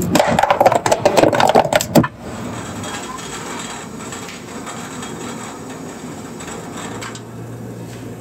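A cardboard coffee box is handled and opened with crackling and rustling for about two seconds. Then a steady hiss follows as a stainless gooseneck kettle heats water on a gas stove.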